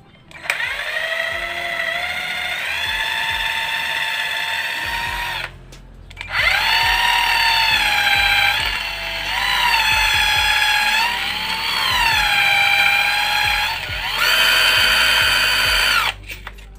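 Electric drill motor whining as it spins an airgun valve against sandpaper to lap its rubber seal flat. It speeds up with a rising whine about half a second in and runs for about five seconds. After a short stop it runs again for about ten seconds, the pitch dipping and recovering as the work is pressed on, then cuts off near the end.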